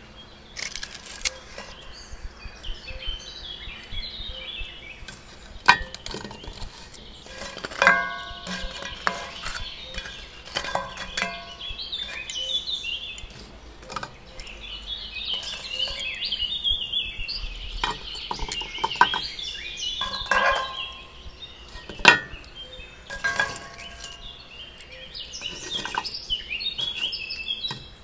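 Metal tongs and lumps of burning charcoal knocking and clinking against cast iron pans as the hot coals are moved, some strikes leaving a short metallic ring. Birds chirp steadily behind it.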